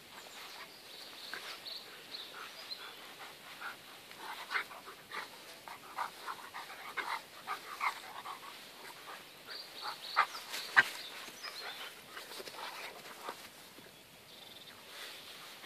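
A dog and a young European badger play-fighting: many short, irregular animal sounds (snuffling, panting and small vocal noises) with scuffling, and a couple of louder sharp sounds about ten seconds in.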